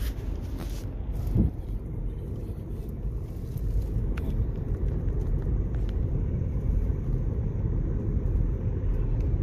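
Steady low rumble of a moving car, with one brief louder thump about a second and a half in.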